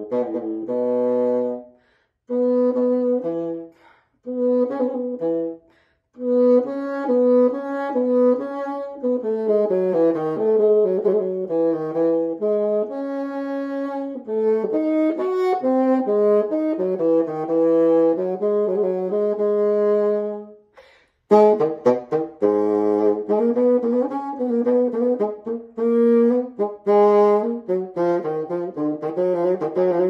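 Solo baroque bassoon playing a melodic passage of separate notes in its middle register. There are short breaks between phrases in the first six seconds and a pause of about a second roughly twenty-one seconds in, before the playing resumes.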